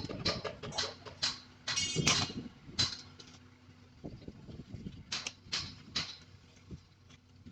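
Steel-fixing work on reinforcing bar: a run of short, irregular clicks and scrapes, several a second, thinning out after about three seconds, over a faint steady hum.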